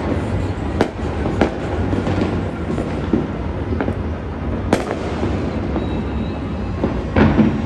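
Fireworks and firecrackers going off across a city: scattered sharp bangs over a steady low background noise. The sharpest crack comes a little before the five-second mark, and a short cluster of louder bangs comes near the end.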